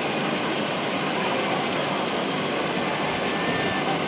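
Steady hubbub of a crowd of spectators, a dense even wash of chatter with no single voice standing out.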